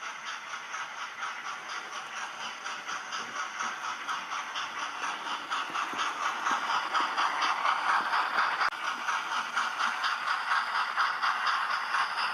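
Model train running round the track: the Flying Scotsman and a Jinty tank engine pulling container wagons, a rhythmic clatter of wheels and mechanism mixed with the Jinty's steam chuffing from its sound fitting, growing louder as the train comes closer.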